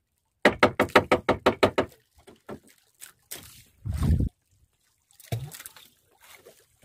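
A knife chopping squid bait on wood, a quick run of about ten chops in a second and a half. Scattered lighter knocks and a dull thump about four seconds in follow.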